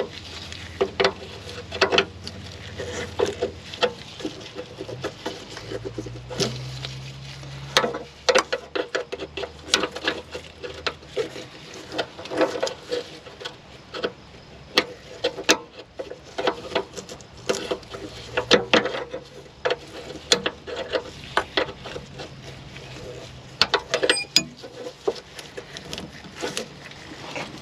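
Hand tools working on rusted fasteners under a car: many irregular metal clicks and knocks, like a ratchet being worked.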